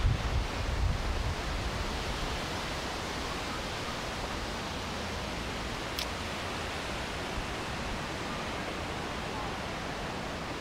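Strong wind rushing steadily through trees, with gusts buffeting the microphone for about the first second and a half. A single faint click comes about six seconds in.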